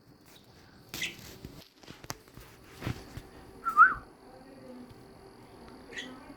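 Pet budgerigars giving a few scattered short chirps and clicks, the loudest a brief warbling chirp about four seconds in.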